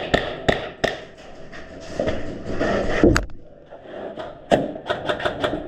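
Airsoft gunfire: sharp single shots in the first second, a loud crack about three seconds in, then a quick string of about six shots near the end.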